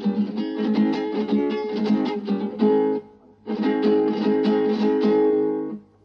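Acoustic guitar strumming sustained chords in Argentine folk style, in two phrases that break off briefly about three seconds in and again just before the end.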